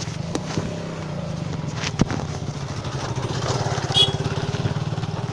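Motorcycle engine running steadily at an even pitch, with a sharp click about two seconds in and a brief high chirp about four seconds in.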